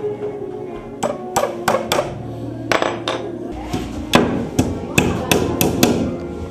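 Hammer striking a small pine shelf frame during assembly: about a dozen sharp blows, in quick groups of two to four.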